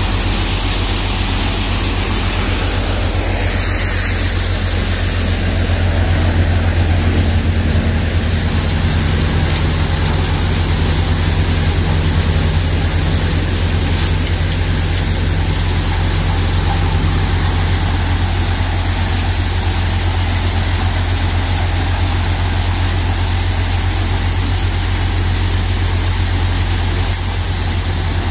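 Bansal Shakti tokri-model multicrop thresher running while threshing soybean crop: a steady, loud low drone of the machine.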